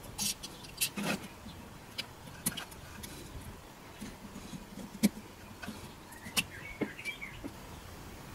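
Irregular small clicks and taps of needle-nose pliers and fingers working inside a plastic battery housing, with a faint short squeak about two thirds of the way in.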